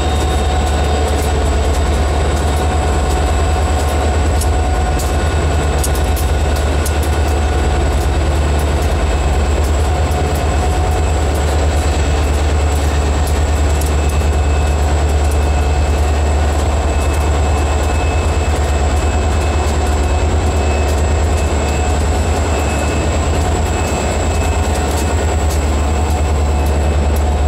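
Ann Arbor Railroad grain train passing slowly at close range: its diesel locomotives rumble by, followed by the covered hopper cars, with a steady low rumble and the repeated clicking of wheels over the rails.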